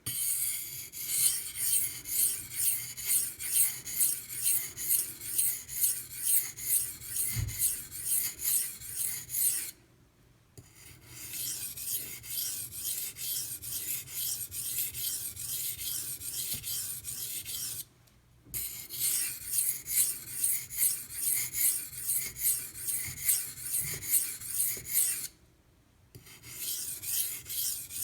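Steel knife edge scraping across a 1000 grit aluminum oxide sharpening stone in runs of quick back-and-forth strokes, about two a second, with three short pauses where the knife is lifted or turned.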